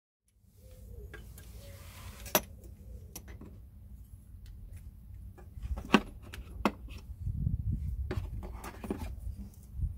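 Steel brake caliper piston rewind tool and its adaptor plates clinking and clicking as they are handled and fitted together, with a sharp clink about two and a half seconds in and two more around six to seven seconds in, over a low steady rumble.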